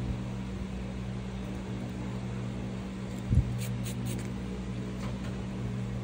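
Steady low hum throughout, with a soft knock a little over three seconds in and a few light metallic clicks just after, as a steel cuticle nipper is set down on a towel.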